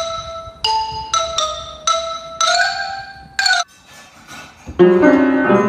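A bright melody of struck, ringing notes like a xylophone or glockenspiel; near the end, piano keys sound in a loud jumble of overlapping notes as a cat steps onto the keyboard.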